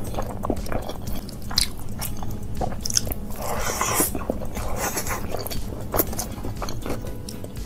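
A person chewing a mouthful of rice and curry eaten by hand, with irregular wet smacking and clicking mouth sounds.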